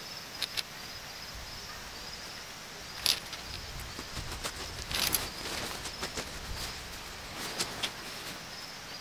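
Footsteps crunching on gravel and tent fabric and fittings being handled, heard as a few sharp crunches and clicks. An insect chirps steadily in repeating pulses, and a low rumble rises through the middle.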